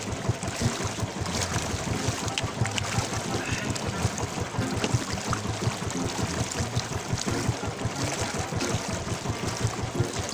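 Wind buffeting the microphone over sea water sloshing and lapping against a small outrigger boat, a steady rushing noise with a rapid flutter.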